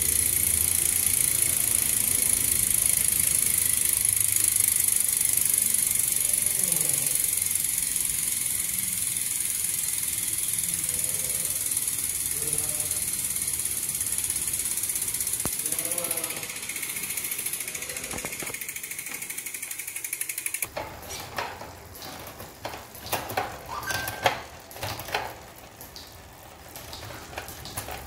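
Road bike drivetrain spinning in a workstand: the chain whirs steadily over the Shimano 105 cassette as the cranks are turned. About twenty seconds in the whir stops suddenly, and irregular ratchet clicks follow as the rear wheel freewheels.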